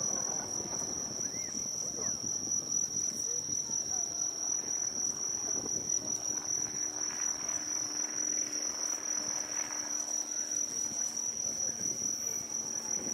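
Insects trilling in one steady, continuous high note, over a faint murmur of crowd voices.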